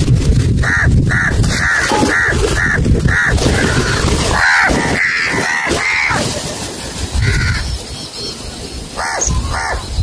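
House crows cawing: a quick run of harsh caws for about the first six seconds, then a lull with one call, then two more caws near the end.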